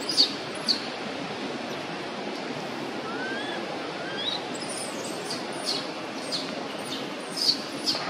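Small birds chirping in the forest: short, high, falling chirps in quick runs, with a few thin rising whistles about three to four seconds in, over a steady outdoor hiss.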